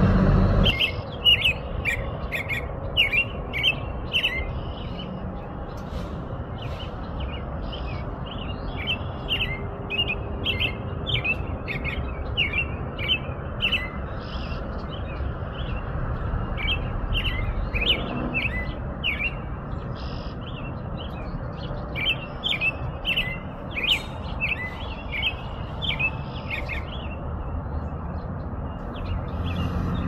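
Veery (sabiá-norte-americano) vocalizing in a fast run of short, high chirping notes, several a second, with a brief pause near the end, over steady background noise.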